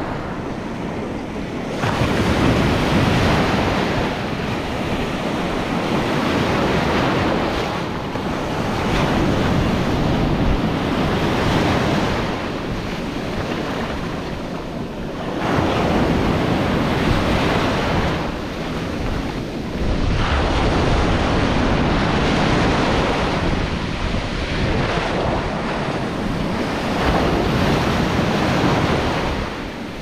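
Atlantic ocean surf breaking in the shallows and washing up and back over the sand, rising and falling in surges every few seconds.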